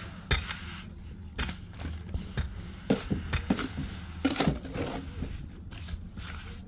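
Irregular knocks and clicks with crinkling, the sound of objects being handled or crushed, over a steady low hum.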